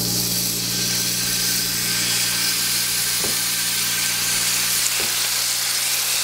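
Seasoned pompano fillets sizzling in hot oil in a cast-iron skillet as they are laid into the pan: a steady, even hiss with a low hum underneath and a couple of faint ticks as pieces go in.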